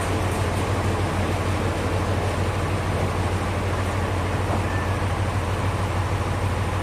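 Sawmill machinery running steadily: a constant low hum under an even mechanical rush, with no single cut or knock standing out.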